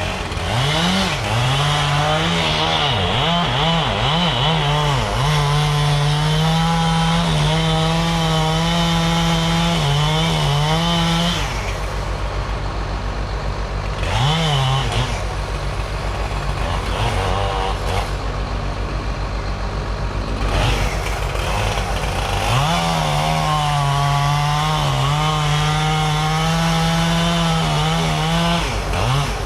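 Gas chainsaw running at full throttle and cutting wood in two long spells, its pitch sagging and recovering under load. In between it drops back to a lower idle, with one brief rev. A steady low engine throb runs underneath throughout.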